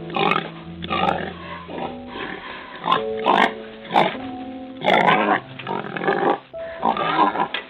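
Domestic pig vocalizing: a run of short, rough grunts, some louder than others, over background music with steady held notes.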